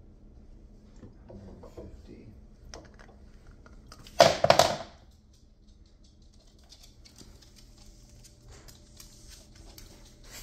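One brief loud burst of noise about four seconds in. Later come light scattered ticking and rustling as the small dog walks across the hard floor.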